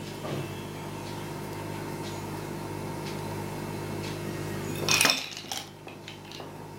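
Steady background hum, with one loud clatter of kitchenware about five seconds in, followed by a few faint clicks.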